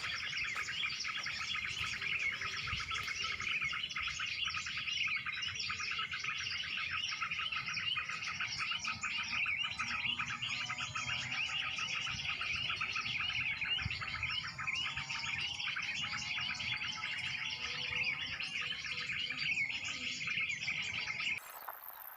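Bird-lure recording of mixed small-bird chirping and twittering, a dense, unbroken chorus played back to attract birds to glue sticks; it cuts off abruptly near the end.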